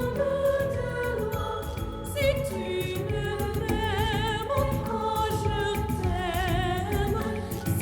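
Music with a sung melody: held, wavering vocal notes with vibrato over a steady instrumental backing.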